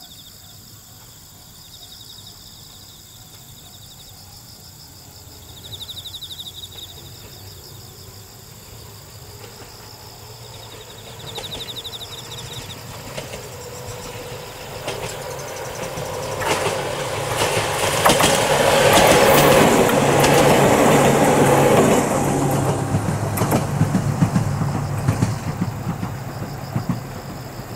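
Ohmi Railway two-car electric train 809F approaching and passing close by. It grows from a distant rumble to a loud run of wheel clatter and motor hum past the middle, then fades as it moves away.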